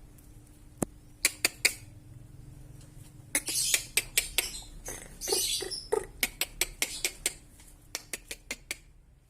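Irregular sharp clicks and taps from a birdcage, with two short rustling bursts in the middle.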